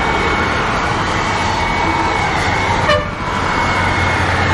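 Handheld electric hair dryer running steadily with a high whine and rushing air, blowing onto a charcoal grill to fan the coals hotter. The sound dips briefly about three seconds in.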